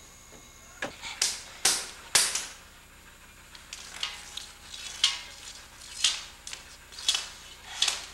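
A series of sharp taps: a quick cluster of four, then a steadier run of about one a second.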